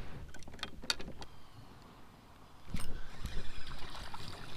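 Spinning reel being cranked, a fluctuating whirr that starts about two-thirds of the way in, after a few light clicks of handling the rod and lure.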